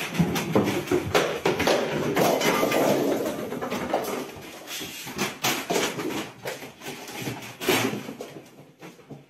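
Plastic bag crinkling and rustling in dense, irregular crackles as a cat moves about with the bag on it, thinning out toward the end.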